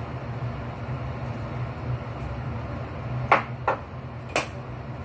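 Dishes and a metal bowl knocking and clinking at a kitchen sink, three sharp clinks in the second half, over the steady low hum of a kitchen extractor fan.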